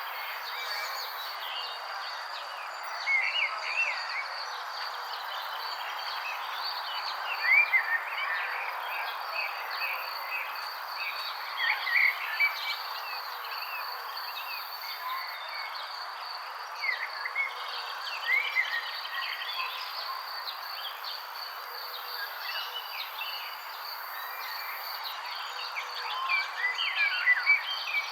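Songbirds chirping in short clusters every few seconds over a steady, high-pitched insect drone and an even background hiss.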